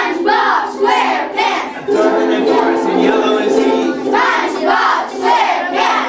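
A group of children singing together in unison while strumming ukuleles, the strums keeping a steady beat under the voices.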